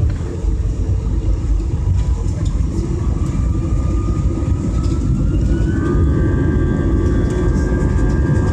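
Airliner jet engines heard from inside the cabin: a steady heavy rumble, with an engine whine that rises in pitch from about three seconds in and then holds steady.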